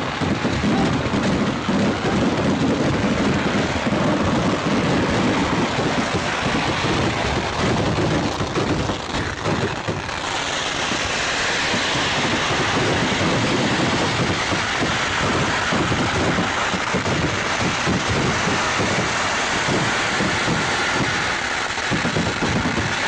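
Kerala temple fireworks (vedikkettu) in a continuous barrage: countless firecrackers bursting in rapid, overlapping bangs with no break. About ten seconds in, the low booming thins and a brighter, higher crackling takes over.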